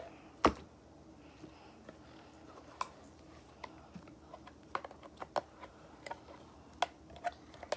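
Blue slime being pulled by hand out of a clear plastic container: scattered small clicks and sticky pops, with one sharp knock about half a second in.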